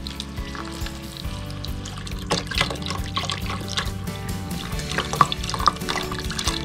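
Seafood stock pouring from a carton into a stainless steel pot of softened onions, the liquid splashing and trickling and getting louder about two seconds in as the stream thickens. Background music plays under it.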